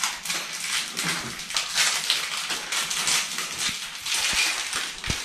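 Crackly rustling and small clicks of hand handling as an Allen key is worked in the grub screw of a chrome toilet roll holder to loosen it, with a soft knock near the end.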